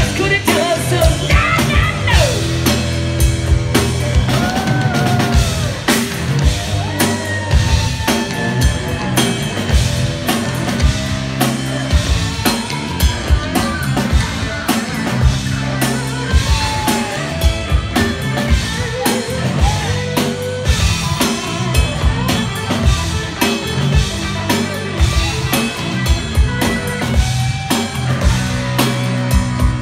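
Live rock band playing loud: drum kit keeping a driving beat under bass guitar and electric guitar.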